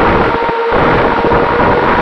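Onboard sound of a Finwing Traveler FPV plane in cruise: steady wind rush over the camera's microphone with the hum of its electric motor and propeller, a faint steady tone under the noise. The low rumble drops out for a moment about half a second in.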